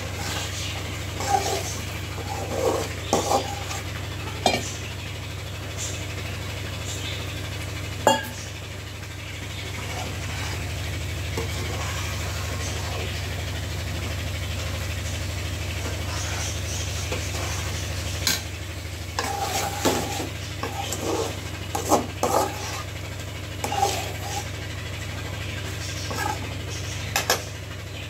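Spoon stirring and scraping in a cooking pan of egg curry, with irregular metal clinks, mostly in the first few seconds and again in the last ten. A steady low hum runs underneath.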